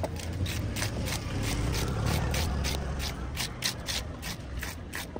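Scales being scraped off a large catla fish with a wooden-handled hand scaler: quick, even rasping strokes, about three to four a second. A low rumble underneath swells in the middle.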